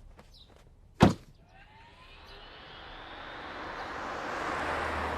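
A car door slams shut about a second in, then a car's engine and tyre noise build up steadily as it drives closer.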